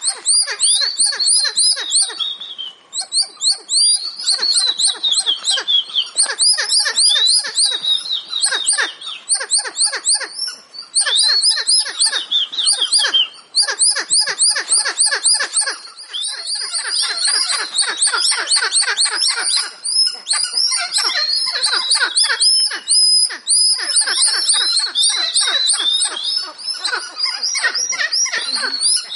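A loud, dense chorus of shrill chirping calls from many animals at once. Each call is a quick, falling squeak, and they overlap and keep up almost without a break.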